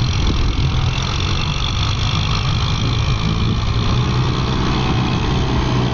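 Kubota MU5501 tractor's four-cylinder diesel engine running steadily under load as it pushes a pile of soil across a field with its front blade.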